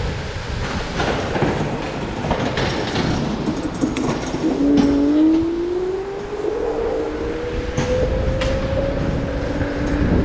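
Electric kick scooter riding over rough pavement: steady wind and road rumble with scattered knocks from bumps. About halfway through, the motor's whine starts and climbs slowly in pitch as the scooter speeds up, then holds steady near the end.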